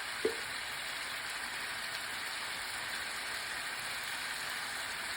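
Chicken wings and vegetables sizzling steadily in a pot as they sauté, with one light knock about a quarter of a second in.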